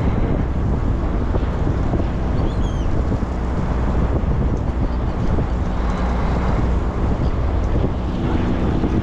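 Wind buffeting the microphone over the steady low hum of a sportfishing boat's engine.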